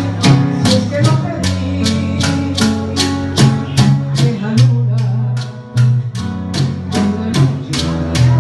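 A live band playing Puerto Rican music: plucked guitar over a steady bass line, with a crisp percussion stroke repeating about two to three times a second.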